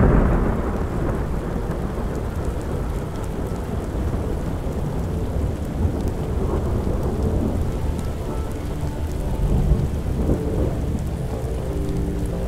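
Long, rolling, deep thunder from anvil-crawler lightning, loudest just at the start and then rolling on without a break, drawn out by the high, far-branching discharges. Rain falls steadily underneath it.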